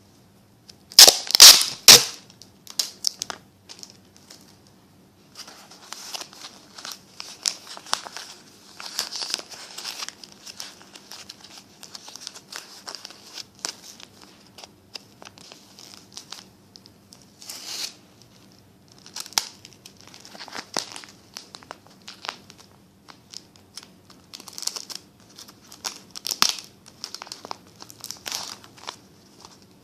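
Paper crinkling and rustling as it is handled, in irregular bursts, with one much louder crackling burst about a second in.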